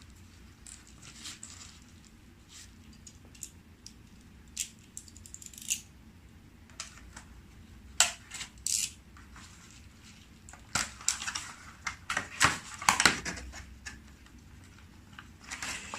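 Packaging being handled and opened by hand: scattered crinkles, rustles and clicks, sparse at first and busier about two-thirds of the way through.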